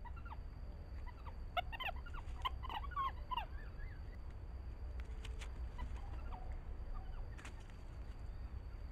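A quick run of short, high chirping animal calls in the first few seconds, then a few fainter chirps and a couple of faint clicks, over a steady low rumble.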